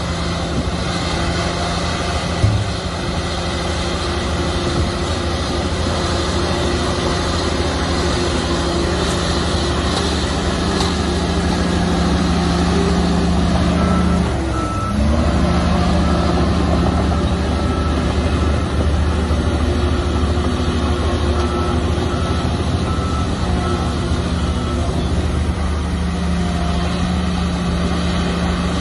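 Heavy diesel earthmoving machinery running steadily. About halfway through the engine pitch dips and picks up again. A reversing alarm beeps repeatedly from about halfway until near the end.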